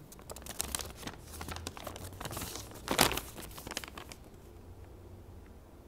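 A folded sheet of paper being unfolded and opened out: a run of crinkling and crackling, loudest about three seconds in, dying away after about four seconds.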